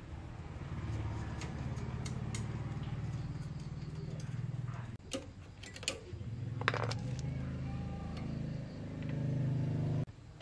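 Small motorbike engine running steadily, a little louder near the end, then cutting off suddenly just before the end. A few sharp metallic clicks and taps from work on the bike sound over it.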